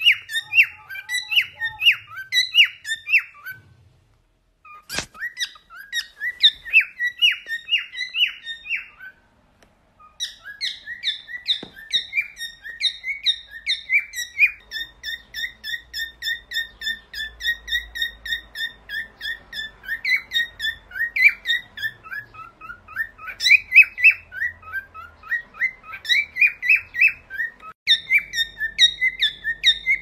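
Cockatiels whistling their song: fast runs of short, chirpy whistled notes, broken by two brief pauses about four and nine seconds in, with a single sharp click about five seconds in.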